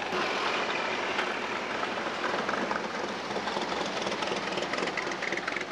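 Loud, steady exhaust of modified street machines rolling past at low speed, among them a pro-street Willys pickup and a supercharged V8 Corvette, with a fast, even pulsing running through it.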